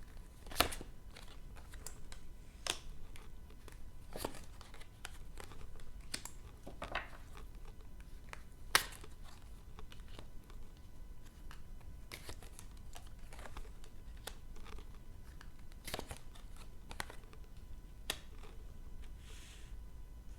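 Tarot cards being handled and laid out on a table: scattered soft rustles and snaps of card stock at irregular intervals, with two sharper snaps, one near the start and the loudest about nine seconds in.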